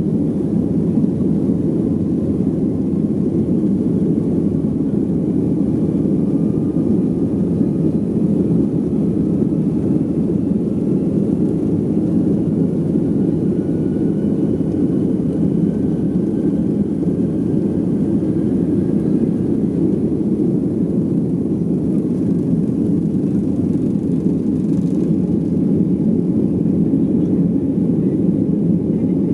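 Boeing 737 jet engines at takeoff thrust heard from inside the cabin during the takeoff roll and liftoff: a steady, loud, low noise with a faint whine rising slowly in pitch partway through.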